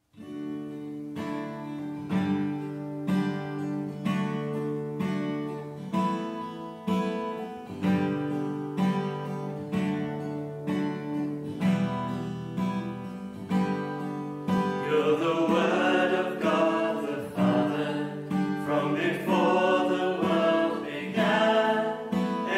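Acoustic guitar playing the chord introduction to a worship song, strummed in an even rhythm of about one stroke a second. About fifteen seconds in, voices join, singing the first verse over the guitar.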